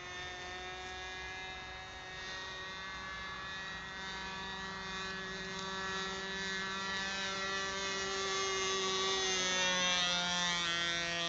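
Radio-controlled model airplane's motor droning steadily in flight. It grows louder as the plane comes closer, and near the end its pitch drops as it passes overhead.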